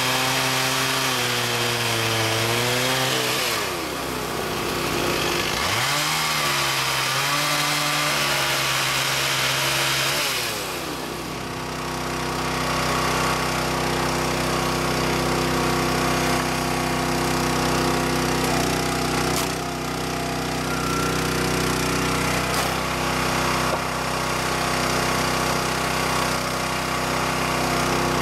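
Stihl chainsaw cutting through firewood logs in two passes: the engine's pitch sags under load and climbs again as the chain clears the wood, with a short lower stretch between cuts. After about eleven seconds a small engine runs at a steady speed without load.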